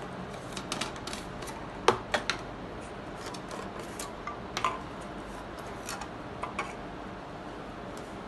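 Plastic screw caps being twisted off jars and set down on a tabletop: scattered light clicks and taps, the sharpest about two seconds in.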